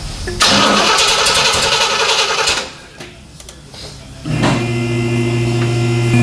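The 1970 Corvette's 350 small-block V8 is cranked by its starter for about two seconds and stops. A little over four seconds in it fires up and settles into a steady, even idle.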